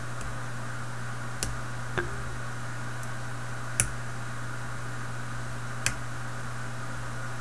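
Four faint, sharp clicks spaced irregularly as a lock pick works the serrated pins of an American Lock A1100 padlock under tension, over a steady low hum.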